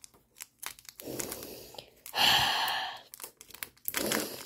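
A foil trading-card booster pack torn open by hand, its wrapper crinkling in several short bursts, the longest and loudest about two seconds in.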